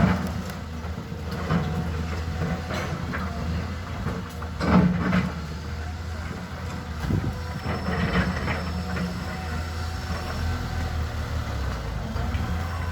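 Caterpillar excavator's diesel engine running steadily, with several separate knocks over it.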